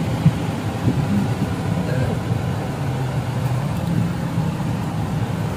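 Car running, heard from inside the cabin: a steady low rumble.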